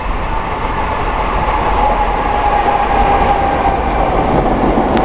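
New York City subway train approaching on open-cut track, its running noise growing steadily louder. A whine in it drops slowly in pitch over a couple of seconds.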